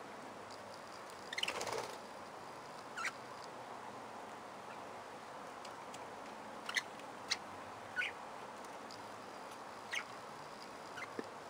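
Budgerigars giving short, scattered chirps, with one louder, longer, harsh call about a second and a half in, over a steady background hiss.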